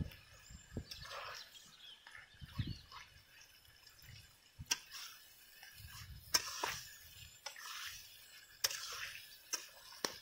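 Long metal spatula stirring and scraping wet spice masala in a steel kadai, with scattered sharp clinks of metal on the pan, over a soft frying sizzle.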